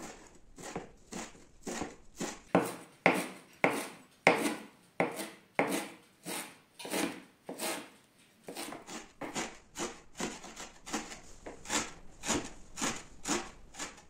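Kitchen knife chopping fresh dill and parsley on a cutting board: a steady run of short chops, about two a second at first, coming faster, nearly three a second, in the second half.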